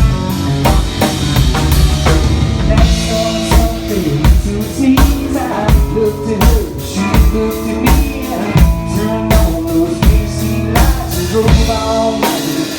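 Instrumental intro of a song: a drum kit keeping a steady beat under guitar.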